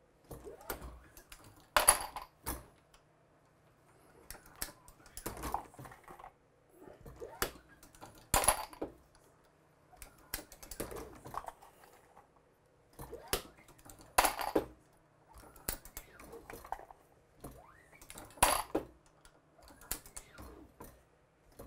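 A Hornady Lock-N-Load AP progressive reloading press cycled by hand. Sharp metal clacks come with each stroke, the loudest about every four to six seconds, and lighter clicks between them as brass cases and bullets are set in the stations.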